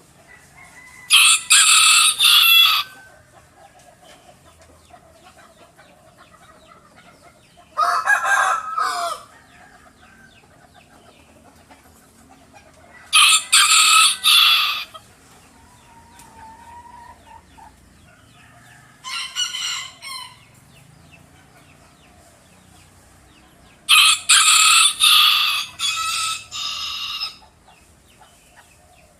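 A hen calling loudly five times, each call a burst of several quick, harsh notes, with quiet pauses of a few seconds between them.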